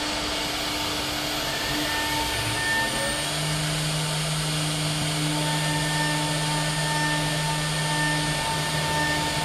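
AKM2030 four-axis CNC router running steadily, a motor whine over an even machine noise. A lower hum joins about three seconds in.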